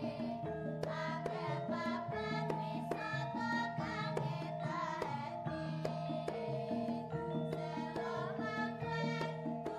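Background music with a melody over percussion.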